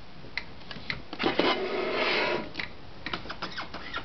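A Montgomery Ward Escort 33 portable manual typewriter being handled: a few light clicks, then a rustling scrape for about a second and a half midway, then more small clicks and taps.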